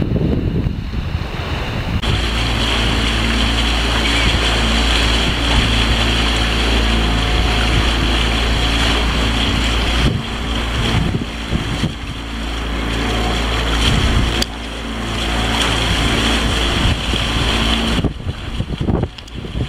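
A small boat's engine running steadily, with a low hum, under wind buffeting the microphone; the sound shifts a few times.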